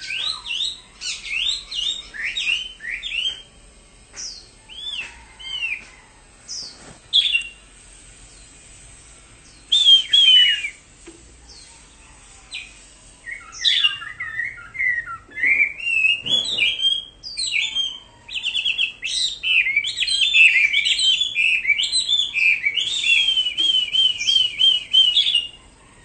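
Caged Chinese hwamei singing: loud, varied whistled phrases broken by short pauses, ending in a fast run of repeated notes.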